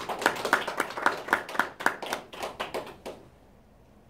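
Hand clapping at a steady pace of about four claps a second, stopping about three seconds in.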